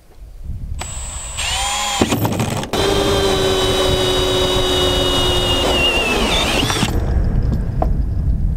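Cordless drill driving a hole saw into the top of a plastic water tank. The motor whines up about a second in and pauses briefly, then runs steady under load. Its pitch sags as the saw bites into the plastic, and it stops about seven seconds in.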